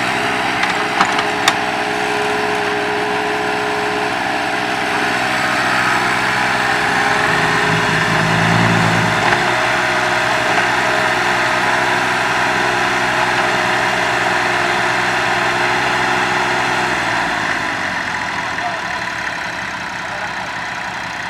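Old mini excavator's diesel engine running steadily while the machine digs, with a few sharp clicks in the first two seconds and a deeper swell in the engine note about eight seconds in. The sound eases off a little near the end.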